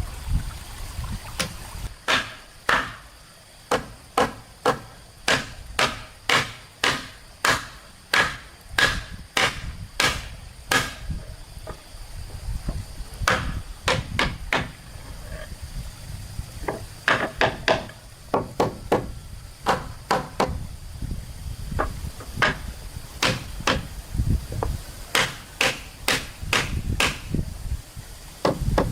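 Repeated tool strikes on wood, sharp and about two a second, in several runs with short pauses between them.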